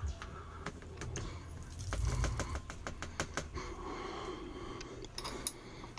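Scattered light metallic clicks and clinks as a brass pistol case is handled at a Hornady Lock-N-Load AP progressive reloading press, with a soft low thump about two seconds in.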